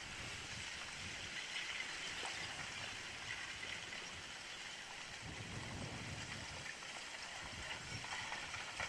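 Advancing lava flow front crackling and tinkling: a steady clatter of glassy lava fragments breaking and tumbling, with scattered small clicks. It sounds like breaking glass.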